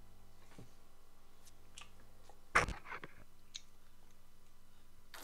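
Handling noise from a clip-on lapel microphone being fingered: scattered small clicks and one sharp knock about halfway through, followed by a few smaller clicks, with faint mouth sounds of sipping from a drinks can.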